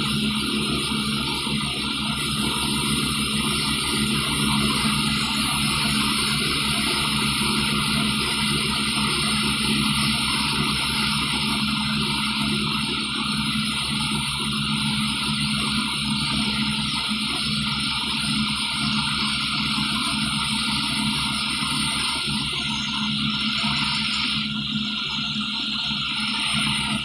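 Tractor and trailer-mounted machine engines running steadily together under a loud, constant rushing hiss, like air or water being pushed through.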